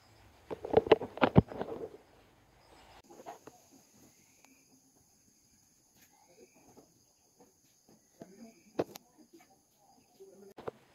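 Handling noise from a phone being moved and reframed: a burst of rustling and knocking in the first two seconds. Then faint short rising chirps over a steady high thin hum, with one sharp click about nine seconds in.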